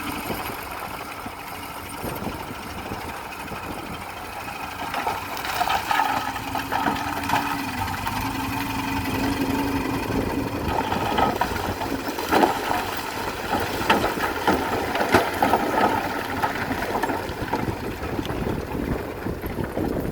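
Heavy machine's diesel engine running, with irregular metallic clanks and rattles throughout.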